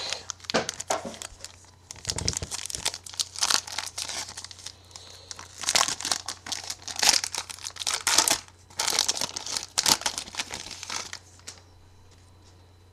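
Plastic wrapper of a trading-card pack crinkling and tearing as it is opened by hand, in irregular bursts that stop near the end.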